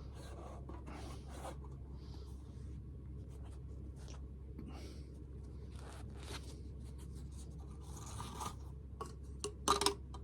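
Soft rustling, scraping and small clicks of a watch and its packaging being handled during unboxing, with a few louder taps and clicks near the end.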